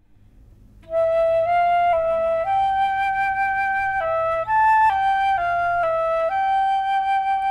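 Concert flute playing a slow solo melody. It comes in about a second in, moves up and down in small steps, and settles on a long held note near the end.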